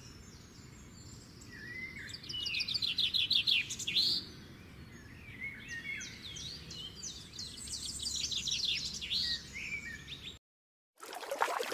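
A songbird singing over faint background noise: a fast trill of repeated high notes, then a run of varied chirps and whistled notes, which cut off abruptly near the end.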